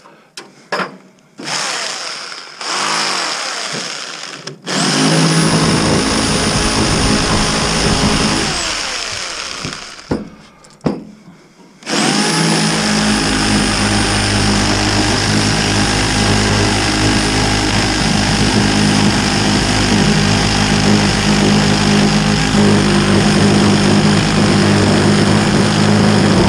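Sawzall reciprocating saw running: a few short trigger pulls, then a steady run that winds down, then a long steady run from about twelve seconds in.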